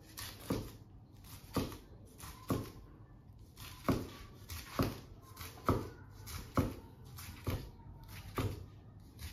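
A wet kitchen knife slicing through a futomaki sushi roll and knocking down onto a plastic cutting board, about nine cuts at roughly one a second.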